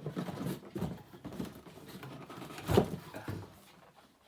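Handling noise from an unboxing: irregular rustling and rubbing, with one louder bump or scrape a little under three seconds in.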